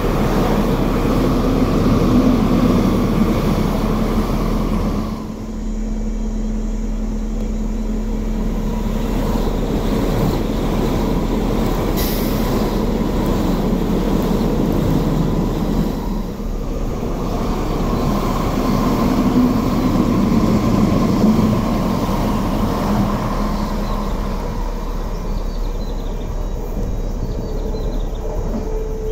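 Electric multiple-unit passenger trains running along the tracks, a continuous rumble of wheels on rail under a steady electric motor whine. The sound changes abruptly twice, as one pass gives way to another.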